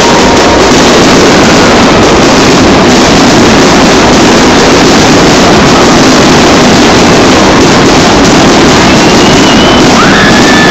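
Dense barrage of fireworks shells bursting without pause, so loud that the recording is overloaded into a steady, distorted crackling din with no single bang standing out.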